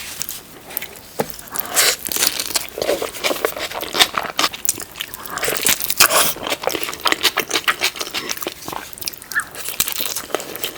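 Close-miked eating of a big burrito: bites and chewing with many irregular crackly, wet mouth clicks.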